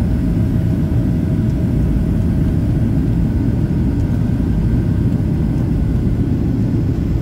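Cabin noise of a Boeing 737 airliner in descent, heard from a window seat over the wing: the steady low roar of the turbofan engines and the airflow, with a faint steady whine above it.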